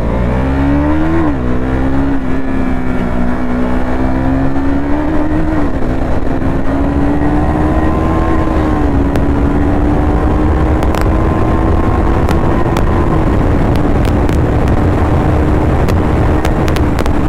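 KTM Duke 390 motorcycle engine running under way at a fairly steady pitch, dipping briefly a few times, with wind and road noise underneath.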